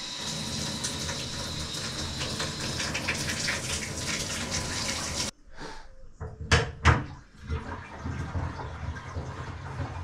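Shower running through a newly replaced shower head, a steady spray of water that cuts off suddenly about five seconds in. Two sharp knocks follow about a second later.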